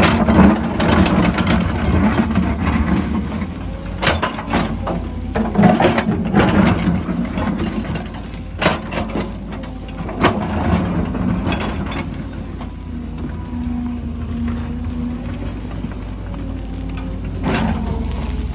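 Excavator's diesel engine running steadily, with irregular knocks and scrapes from rock and soil being worked, most frequent in the first half.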